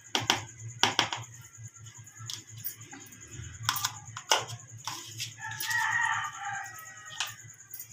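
A spoon knocking and scraping against a plastic bowl in scattered sharp clicks as diced boiled potatoes are tipped out. A rooster crows in the background from about two-thirds of the way in, one call lasting nearly two seconds.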